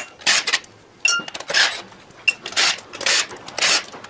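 Steel bolts clinking and rattling against a round metal parts tray as they are dropped in and handled, heard as about seven short clatters with a couple of brief high-pitched clinks.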